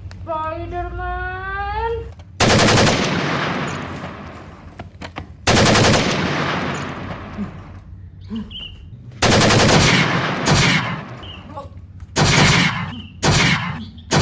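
Six bursts of rapid-fire, machine-gun-like gunfire. Each starts suddenly and dies away over a second or two, and they come a few seconds apart.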